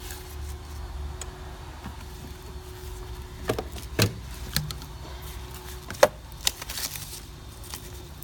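Scattered sharp clicks and knocks of car parts being handled and fitted in the engine bay, the loudest about six seconds in, over a steady low hum.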